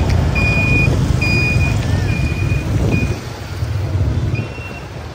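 A vehicle's reversing alarm sounds a high beep about once a second over a low engine rumble. Near the end the beep shifts to a slightly higher pitch.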